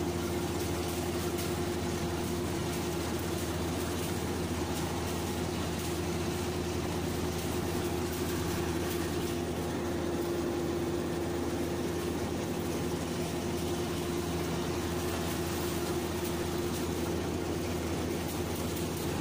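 An engine running steadily at a constant speed: an even, unchanging hum with a steady tone.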